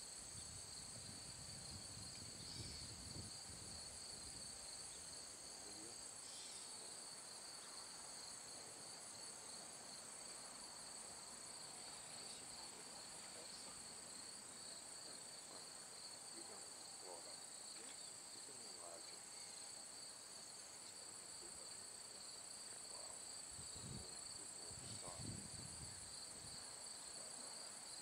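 Field insects chirring: a faint, steady high buzz in two pitches that does not let up. There are brief low rumbles near the start and again near the end.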